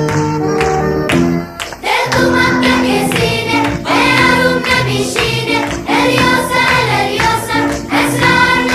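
Background music: an instrumental passage that breaks off about a second and a half in, followed by a song with a group of voices singing over a steady beat.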